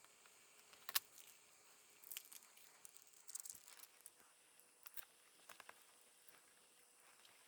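Faint, scattered light clicks and brief rustles of small laptop parts being handled during a screen installation, with one sharper click about a second in.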